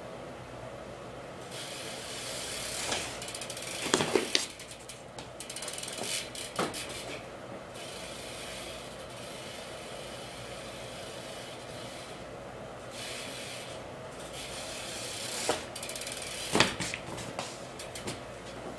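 Verde Radia BMX bike being ridden and thrown around in flatland tricks: tyres rolling with a steady hiss, and a handful of sharp knocks of the tyres hitting the floor, the loudest about four seconds in and again near the end.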